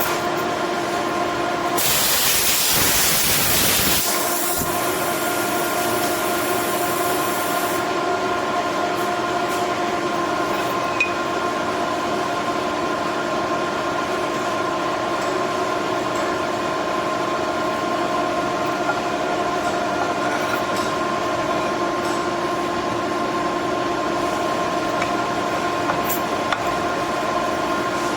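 A workshop machine running steadily with a constant whine. About two seconds in, a loud hiss lasts about two seconds, then tails off.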